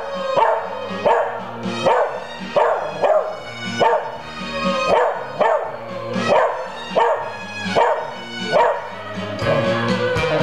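A Pembroke Welsh Corgi singing along to TV theme music in repeated howling barks, over a music track with a steady beat.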